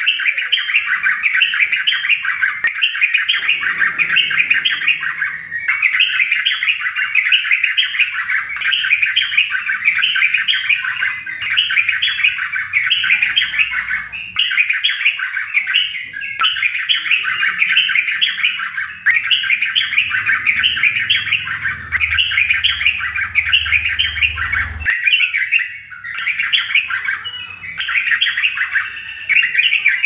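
Caged yellow-vented bulbul (trucukan) singing a fast, nearly unbroken string of quick chattering phrases, with only brief pauses. This is the dense nonstop 'ropel loss' song that keepers prize.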